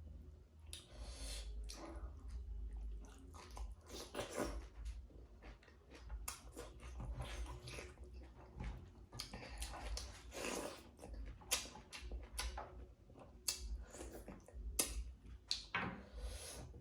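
Close-up eating sounds: a mouthful of pork and rice being chewed, with irregular wet smacks and mouth clicks, over a steady low hum.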